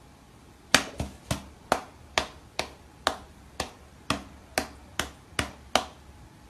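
About a dozen sharp taps on a glass pane, roughly two a second, starting about a second in. A cat on its hind legs is pawing at a hand pressed against the other side of the glass.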